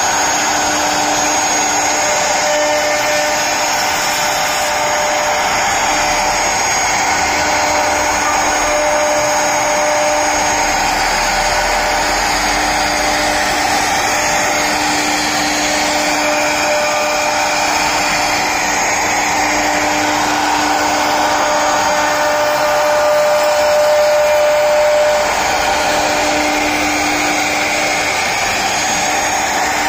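CNC router spindle cutting into a wooden door panel: a steady rushing machine noise with a constant whine held over it, briefly a little louder about two-thirds of the way through.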